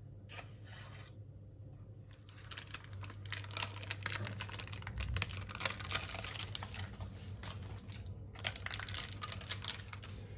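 Piping bag crinkling and rustling in the hand as melted dark chocolate is squeezed out in lines. It is a dense run of small, irregular crackles that starts about two seconds in.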